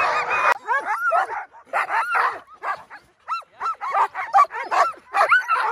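Sled dogs (Alaskan huskies) yipping, whining and barking in many short rising-and-falling yelps in quick, irregular succession. The sound changes abruptly about half a second in, from a dense jumble to separate, clearer yelps.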